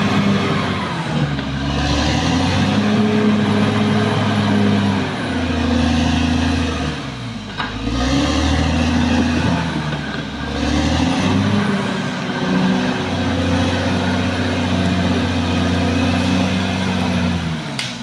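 Caterpillar D6R XL bulldozer's diesel engine running under working load. Its engine speed sags and picks up again several times as the machine works the blade.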